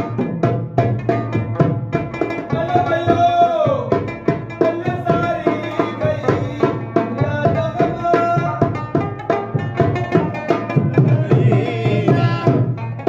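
Rabab and dholak playing a Pashto tapay: rapid, steady hand-drum strokes under a plucked rabab melody, with a short sliding note about three seconds in and again near the end.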